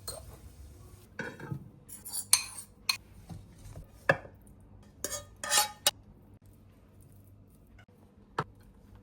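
Kitchen utensils and dishes being handled: a string of separate clinks and knocks of metal and crockery, bunched in the first six seconds, with a single knock near the end.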